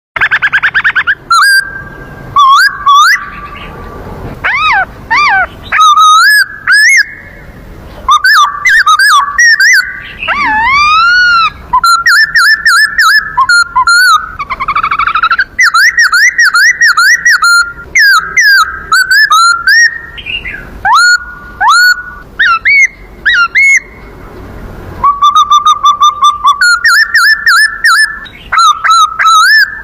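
A man imitating birdsong by mouth: bursts of high whistled chirps, warbles and rapid trills that glide up and down, with short gaps between phrases.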